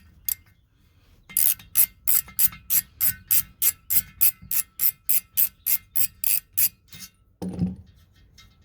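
Ratchet wrench clicking steadily, about four clicks a second for some five seconds, as it turns a stud puller backing a loosened stud out of an intake manifold.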